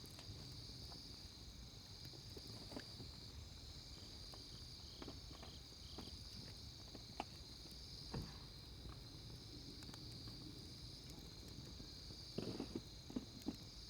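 Night insects chirring in a steady high-pitched drone, with scattered faint clicks and a short cluster of knocks near the end.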